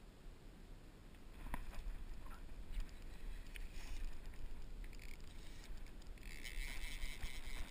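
Fly reel's click-pawl ratcheting rapidly for about two and a half seconds, starting about six seconds in. Before it come scattered light clicks of line and reel handling, over a low rumble of wind on the camera microphone.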